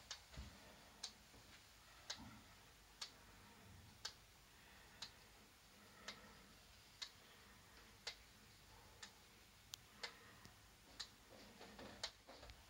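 Wooden gear wall clock's escapement ticking steadily, about one quiet tick a second, with a few extra irregular clicks near the end.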